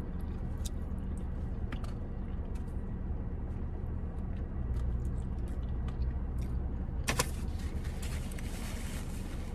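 Quiet chewing with small mouth and plastic-fork clicks over a steady low rumble in a parked car's cabin. About seven seconds in, a paper napkin rustles as it is wiped across the mouth for a couple of seconds.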